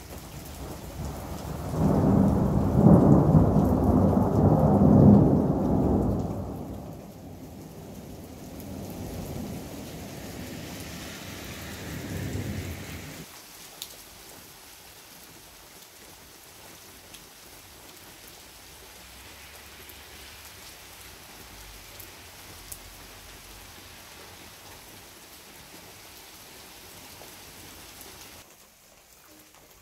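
A long peal of thunder over steady rain. The rumble swells loudest a couple of seconds in and dies away over several seconds. The rain falls quieter near the end.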